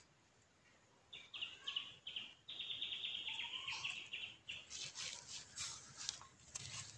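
A bird calls in a rapid buzzy trill for about three seconds, starting a second in. From about four and a half seconds, a young rabbit scratching and scraping as it digs in dry, crumbly soil.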